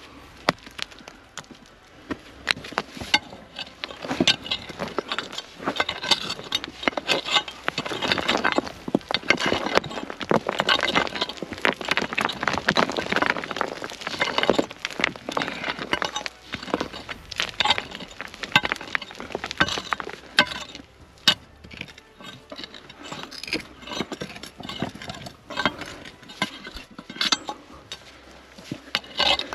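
Hand pick digging into dry, stony soil: repeated strikes and scraping, with stones clinking against each other. The digging is busiest through the first half and thins to scattered knocks later.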